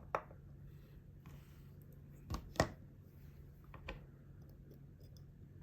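A few small, sharp clicks and taps of watchmaker's hand tools (screwdriver and tweezers) against a wristwatch movement, as a bridge is being unscrewed, over a faint steady hum.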